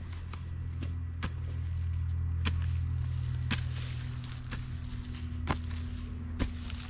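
A pick mattock striking into loose garden soil, with repeated blows about one a second, the last two the loudest. A steady low rumble runs underneath and swells in the middle.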